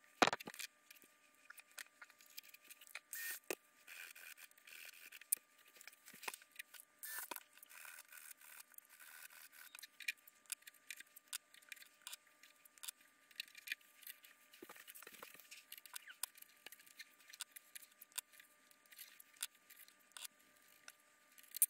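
Quiet bench handling: adhesive tape being pulled, torn and pressed down over control horns on a model airplane wing, heard as scattered small clicks and scrapes over a faint steady hum.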